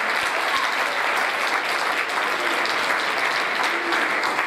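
Congregation applauding steadily, a dense, even clapping.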